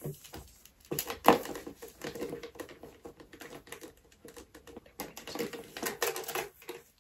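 Metal clips and hardware of a leather crossbody strap clicking and rattling as the strap is handled and hooked onto a handbag's rings, with one sharp click about a second in and another run of clicks near the end.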